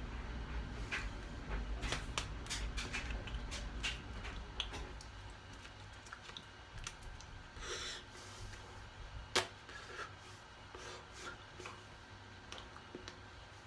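Soft taps, clicks and rustles of hands and shirt sleeves touching and brushing as a person signs, busiest in the first few seconds, over a low rumble that fades about halfway. One sharper click about nine seconds in.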